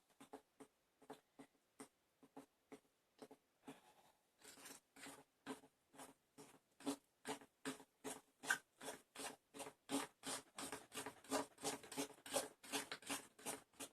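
Metal fork beating thick chocolate cake batter in a bowl, each stroke clicking and scraping against the side. The strokes are sparse and light at first, then about four seconds in they become quicker and stronger, about three to four a second.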